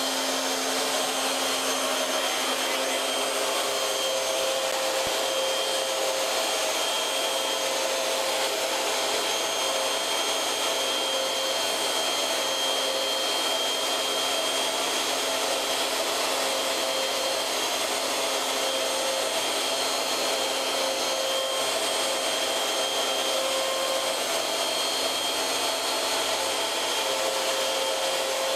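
CNC router spindle running with a steady rushing noise and high whine while its end mill cuts a roughing pass into a block of stock, taking the bulk of the material away.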